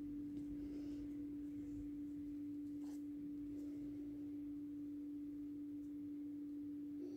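A steady hum held at one pitch, unchanging throughout, with a faint click about three seconds in.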